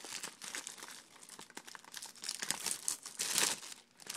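Plastic shrink wrap crinkling and crackling as it is pulled off and handled on a Blu-ray case, in irregular bursts, loudest about three seconds in.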